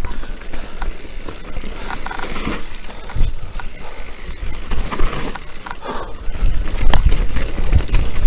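Mountain bike riding down a rough dirt singletrack: tyres rolling over the ground with a low rumble, and the chain and frame rattling and clicking over bumps. It gets louder and rougher about two seconds before the end.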